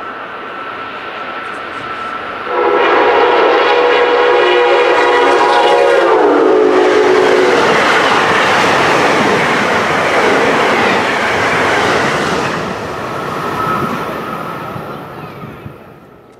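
An Amtrak ACS-64 electric locomotive and its passenger train pass at speed. The locomotive sounds its horn for about four seconds, and the pitch drops as it goes by. The rush and clatter of the passing cars follows and fades away near the end.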